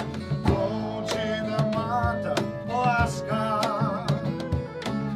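Live acoustic band music: acoustic guitar accompaniment, a flute melody with wavering pitch, and a man's singing voice.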